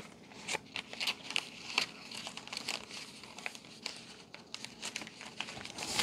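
Clear plastic bags crinkling as they are handled, an irregular run of crackles and rustles.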